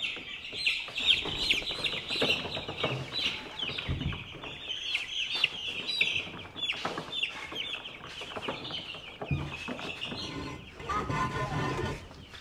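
A brood of young chickens cheeping constantly, many short high peeps overlapping, with a few dull knocks among them.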